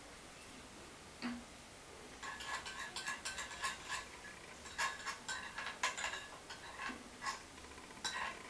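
Spoon clinking against a glass bowl while stirring gel: irregular ringing clinks, several a second, starting about two seconds in, after a single click a second in.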